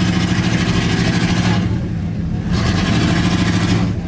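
Lowered 1990s GMC pickup's engine idling loudly with an uneven, pulsing lope.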